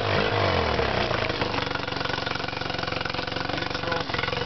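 Honda BF20 20 hp two-cylinder four-stroke outboard running; its revs fall off over the first second and it settles to a steady idle.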